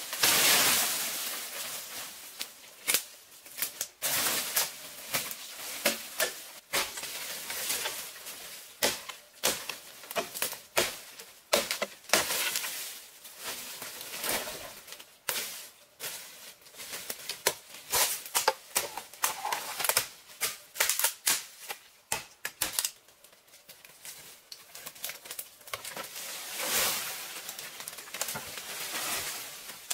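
Bamboo poles being dragged and handled through dry forest undergrowth: dry leaves and stems crackle and rustle, with many irregular sharp knocks and snaps. The longer rustles come at the start and again near the end.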